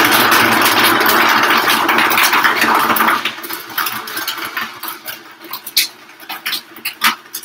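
Vitamix blender running steadily on a smoothie with ice, falling away sharply about three seconds in. Scattered light clicks follow.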